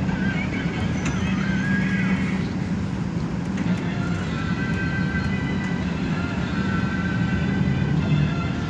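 Steady engine and road noise inside a moving intercity express bus, with a thin high whine that comes in about halfway through.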